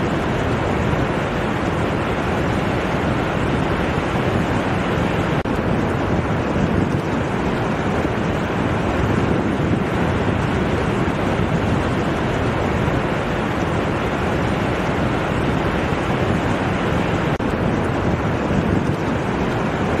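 Ocean surf breaking and washing in over a shallow sandy beach, a steady, unbroken rush of water.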